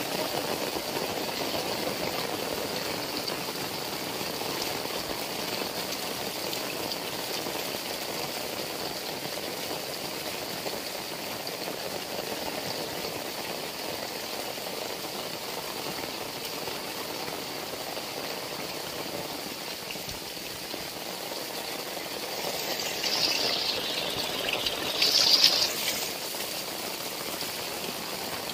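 Heavy rain falling steadily, a dense even hiss of water. Near the end, two short louder surges of the hiss rise and fall away.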